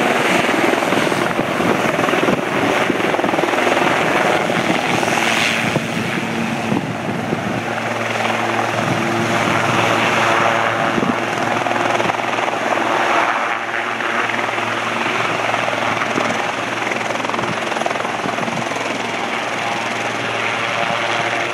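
Sikorsky S-76 helicopter running at full power as it hovers low and moves away, with a steady rotor and turbine drone that slowly fades.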